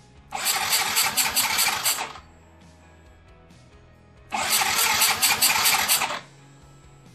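Yamaha Mio 125 scooter's single-cylinder fuel-injected engine being cranked on the electric starter in two bursts of about two seconds each, without catching: a hard restart after its throttle body and combustion chamber have been cleaned and the idle air adjustment screw removed.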